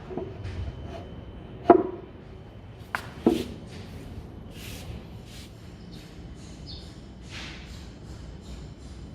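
Wooden parts being handled by hand: three sharp knocks, the loudest about two seconds in, then a pair a second later, followed by softer short scrapes and rustles.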